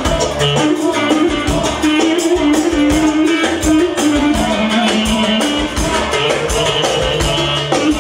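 Loud upbeat dance music with a steady beat and a melody line.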